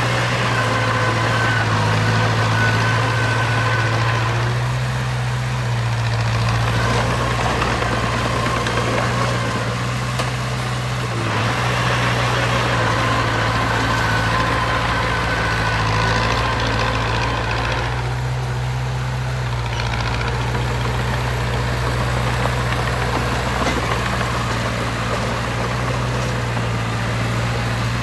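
Heavy construction machine's diesel engine running, its low hum shifting up and down every few seconds as the load changes, with a faint whine coming and going above it.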